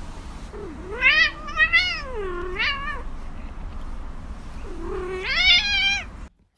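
Grey domestic cat meowing: three rising-and-falling meows in quick succession about a second in, then one longer, drawn-out meow near the end.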